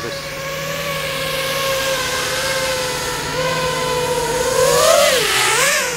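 A 250-size FPV quadcopter with T-Motor F80 1900 KV motors and 6-inch props flying close by: a steady buzzing whine of motors and propellers. Over the last second or so the pitch rises and dips several times as the throttle changes.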